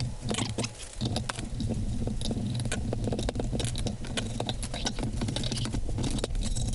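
Rapid clicking and rattling over a steady low hum as the chrome housing is worked off a motorcycle fuel tank. The hum dips briefly about a second in and stops near the end.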